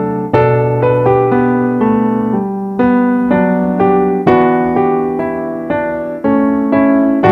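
Background piano music: a melody of single notes over held chords, a new chord struck every couple of seconds.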